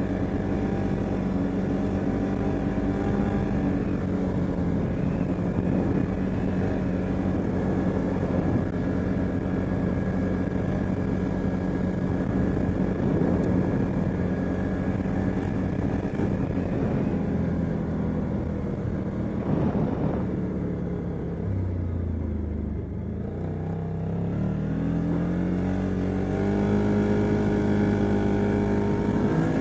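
CFmoto ATV engine running at a steady speed, easing off to a low, slow note about two-thirds of the way through, then picking up revs again in the last few seconds. The machine's exhaust is leaking.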